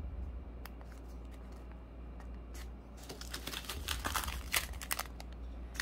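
Plastic packaging being handled: a few small clicks, then from about halfway a dense crinkling rustle.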